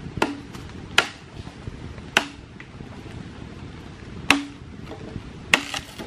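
Hollow bamboo pole knocking sharply as it is rammed down into the ground as a stake: six strikes at uneven intervals, the last two close together, each with a short hollow ring.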